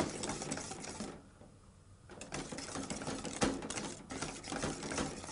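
Hand wire whisk beating thick custard (crème pâtissière) in a stainless steel saucepan over the heat: rapid clicking and scraping of the wires against the pot, with a short pause about a second in. The whisking is kept up without stopping so the thickening cream does not catch and burn on the bottom.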